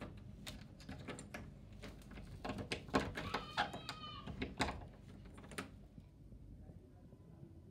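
Metal clicks and rattles of a round doorknob and a barrel bolt being worked on a wooden door, with a short high squeak about three seconds in.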